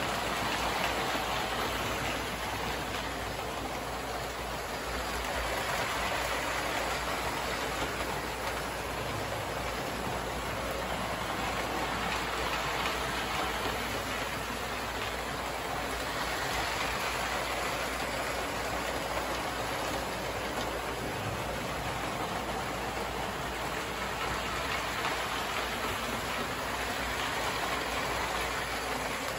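Several post-war American Flyer S-gauge toy trains running at once: a steady whirring rumble of motors and wheels on the metal track that swells and fades every several seconds as trains pass close by.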